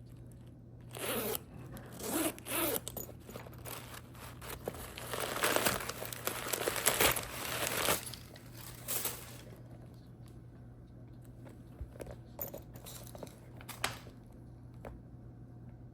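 Close-up handling of a leather shoulder bag: its top zipper is run back and forth in several rasping strokes, loudest and densest in the middle. After that it trails off into faint rustling and light clicks.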